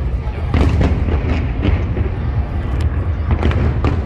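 Fireworks shells bursting: a run of booms and sharp bangs over a steady low rumble, with one bang about half a second in and a quick cluster of reports in the second half.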